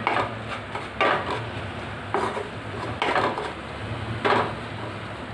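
Wooden spatula scraping and stirring cooked leafy greens in a non-stick frying pan, about five strokes roughly a second apart.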